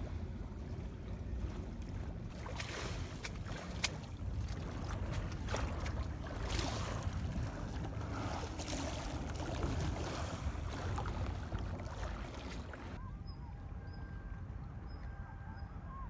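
Wind buffeting the microphone over choppy sea water splashing and lapping against a seawall. About thirteen seconds in, it cuts to a calmer stretch with a faint steady hum and a few small high chirps.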